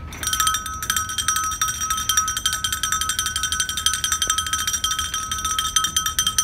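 A small metal bell shaken rapidly and without a break, its fast, even strikes blending into one steady ringing, as ritual accompaniment to an invocation.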